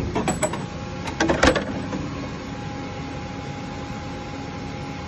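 DMG Mori NLX2000SY CNC turning centre running with a steady mechanical hum. A cluster of sharp metallic knocks and clatter comes in the first second and a half, then a steady tone joins the hum.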